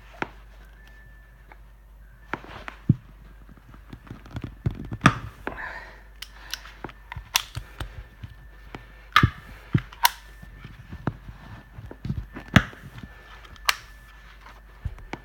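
Pliers working at an old dishwasher sump grommet, a rubber ring with a steel spring ring inside, trying to cut it apart: irregular clicks, snaps and knocks of the tool and parts on a hard surface, with short pauses between them.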